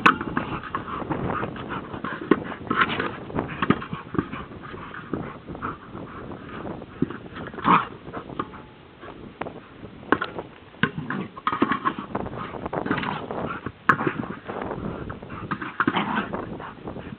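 A border collie playing with a large nose ball on grass, with irregular bumps and scuffles every second or two and sounds from the dog.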